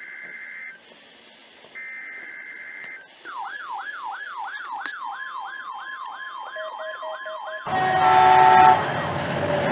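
Emergency Alert System test signal: two buzzy one-second data bursts of the SAME header a second apart, then a warbling siren-like alert tone that rises and falls about three times a second for some four seconds. Near the end a louder, noisier passage with several steady tones takes over.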